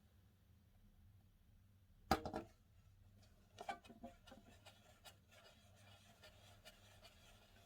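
Slime being squished and pressed by hand, giving sticky crackling clicks and pops. A loud cluster comes about two seconds in and a weaker one a little later, then faint small crackles.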